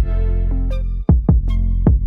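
Electronic background music with a heavy bass and a drum-machine beat.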